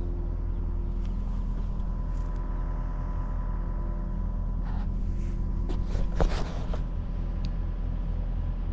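An engine running steadily with a low hum, with a few short knocks or clanks, the loudest about six seconds in.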